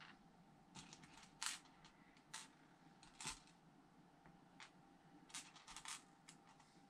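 Small plastic Lego pieces clicking and tapping faintly as a hand picks through and sorts them, a scattered run of light, irregular clicks with a quick cluster near the end.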